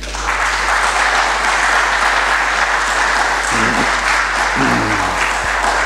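Audience applauding steadily at the close of a talk, with a voice briefly heard over the clapping a couple of times past the middle.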